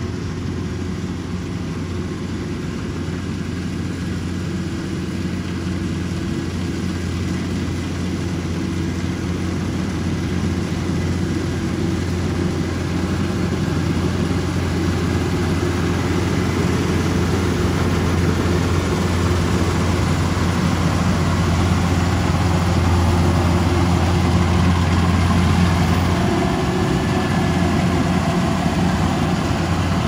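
Kubota DC-105X rice combine harvester's diesel engine running steadily under working load, its hum growing gradually louder.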